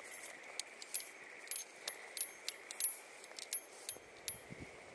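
Small metal items jingling and clicking irregularly, several clinks a second, as a person walks. A steady faint high-pitched hum runs underneath.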